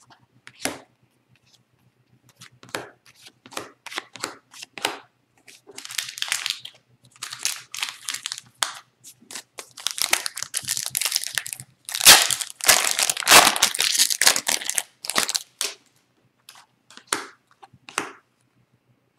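A foil trading-card pack being torn open and crinkled in the hands. It comes in dense crackling bursts, loudest past the middle, with scattered rustles and clicks of cards being handled before and after.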